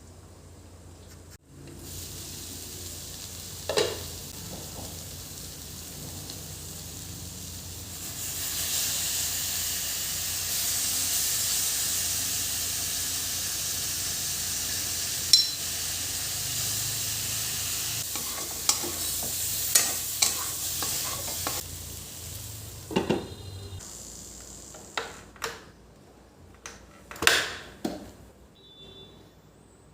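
Food sizzling as it fries in a pan while being stirred; the sizzle swells about eight seconds in and fades after about twenty-two seconds. Sharp clinks and knocks of a utensil against the pan come scattered through it and in a run near the end.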